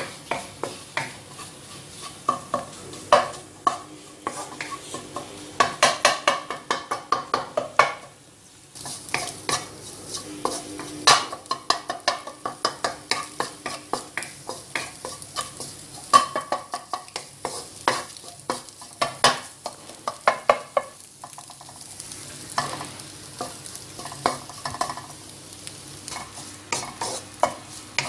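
Wooden spatula scraping and tapping a nonstick pan in quick runs of strokes while beaten eggs sizzle in oil as they are scrambled. The stirring stops briefly about eight seconds in, then carries on.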